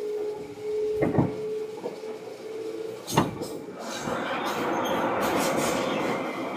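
Seibu 2000 series electric train running, with a steady whine. There are two sharp knocks about one and three seconds in, then the rolling noise grows louder and rougher from about four seconds.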